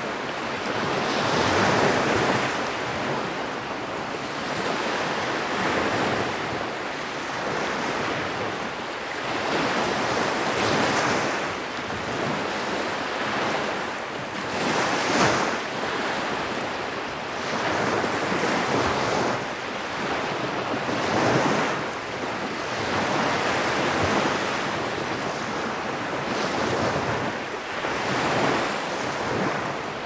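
Sea waves breaking and washing on the shore, the sound swelling and falling every few seconds, with the loudest wash about halfway through.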